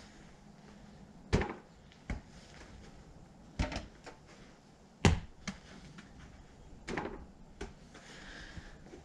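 Small play balls thrown one after another, knocking against hard surfaces and bouncing: about eight short hits, with the loudest about five seconds in.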